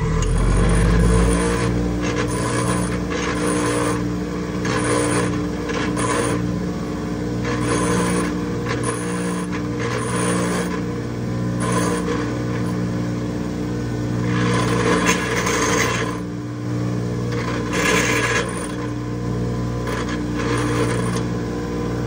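Bench grinder running with a steady motor hum while a steel pipe fitting is pressed to the wheel again and again, each pass giving a harsh grinding rasp. The grinding takes the burr off the pipe piece so it will fit.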